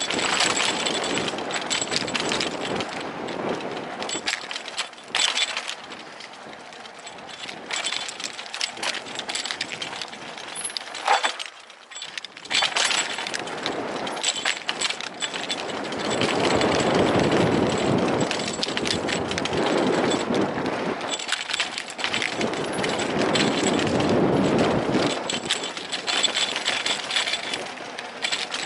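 Mountain bike rattling and clinking over bumps as it rides fast down a dirt trail, with wind rushing over the helmet-mounted microphone. The rush swells louder in the second half.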